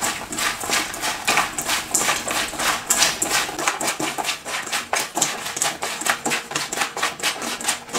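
Hands tossing and squeezing smashed cucumber pieces with chili powder, sugar, soy sauce and vinegar in a stainless steel bowl: a steady run of short wet squishes and rattles, several a second.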